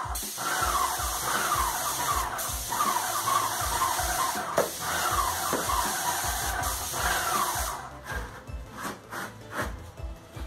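Graco Magnum LTS 15 airless paint sprayer spraying: a steady hiss of paint leaving the gun's tip, cutting off abruptly about eight seconds in as the trigger is released.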